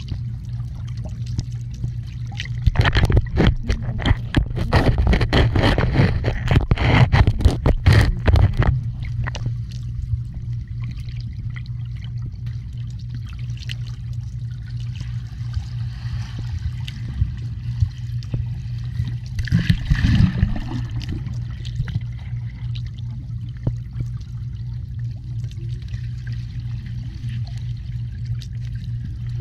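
Swimming-pool water heard underwater: a steady low hum, with bursts of bubbling, churning water from about 3 to 9 seconds in and again briefly around 20 seconds.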